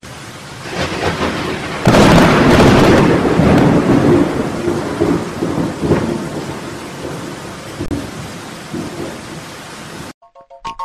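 Recorded thunderstorm sound effect in the dance music mix: steady heavy rain with a loud peal of thunder about two seconds in. It starts and stops abruptly at edits and is cut off near the end by a chiming tune.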